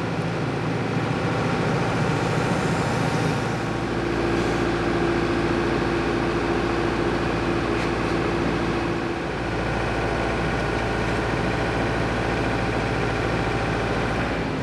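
Forklift engine running steadily, lifting the radiator into place. A steady higher tone joins in about four seconds in and fades out around nine seconds.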